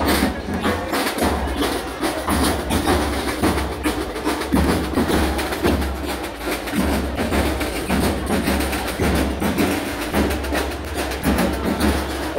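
Marching drum band playing: snare drums struck with sticks in a fast, continuous rhythm of crisp hits.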